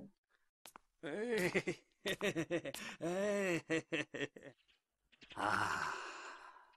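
Cartoon character voices making wordless groans and exclamations, with pitch bending up and down, then a long breathy sigh that fades out near the end.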